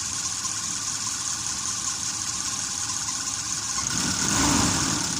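Mitsubishi L300 gasoline engine running at idle with its ignition coil resistor bypassed, the engine sound swelling louder briefly about four seconds in.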